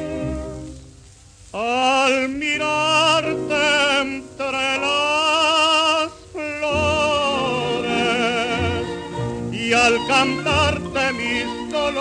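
Song with a tenor voice singing long held notes with wide vibrato over instrumental accompaniment, the voice entering with a rising swoop about a second and a half in after a short quieter instrumental passage, with a brief break near the middle.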